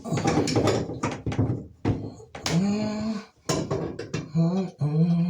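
A man's voice humming a few long, level notes in the second half, after a couple of seconds of short, broken vocal sounds.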